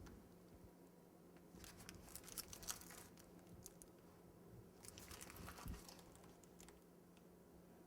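Faint crinkling of a plastic piping bag being squeezed while piping buttercream, in two short spells. Otherwise near silence.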